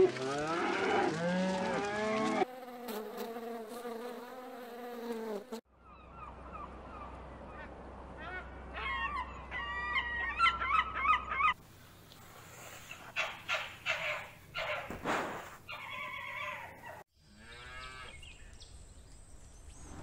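A run of animal calls. Cattle moo for the first couple of seconds. After other calls, a flock of gulls calls over water from about six seconds to nearly twelve, followed by more squawks and sharp clicks.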